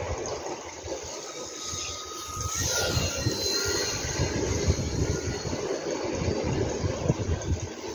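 RC foam plane's electric motor and propeller whining in flight, the pitch dropping as it passes about three seconds in, under a heavy, irregular low rumble.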